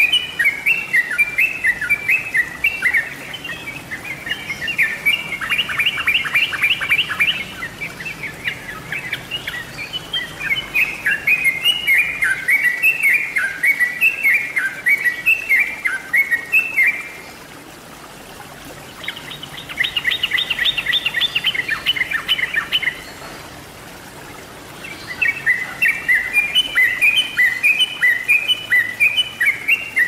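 Yellow-vented bulbul (trucukan) singing: quick, bubbly chirping phrases repeated again and again, twice breaking into a faster rattling run, with two short pauses.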